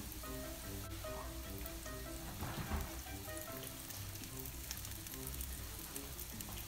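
Background music, a light melody of short notes, over the faint sizzle of jalebi batter frying in a pan of hot oil.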